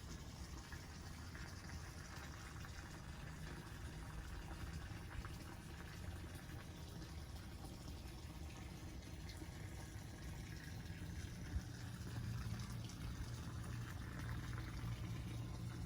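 Running water: a steady, faint rush that grows a little stronger near the end, with one brief click about three-quarters of the way through.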